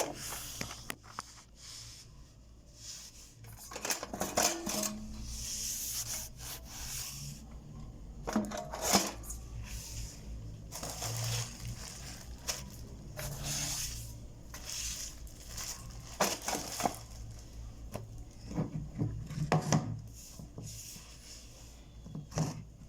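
Kitchen cleaning: scrubbing and rubbing on surfaces, broken by irregular knocks and the clatter of dishes and other objects being picked up and set down.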